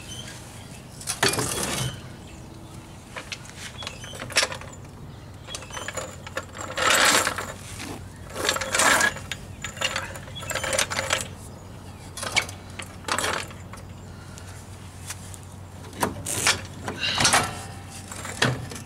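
Hand tools working on a Jeep's rear axle and brake assembly: short, irregular runs of ratchet clicking and metal clinks, about ten bursts in all.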